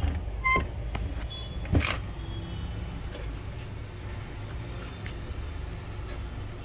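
A steady low background rumble, over which a metal craft knife picking at a laptop keyboard's key mount gives a few light clicks and one sharper tap about two seconds in.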